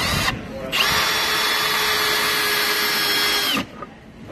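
Milwaukee M18 Fuel Gen 3 cordless hammer drill driving a long screw into a wood block. The motor runs at one steady speed with a constant whine for about three seconds, then stops suddenly as the screw seats.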